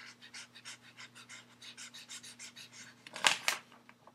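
Red felt-tip marker scribbling back and forth on a sheet of paper, quick scratchy strokes about six a second, with two louder scrapes of the paper a little after three seconds in.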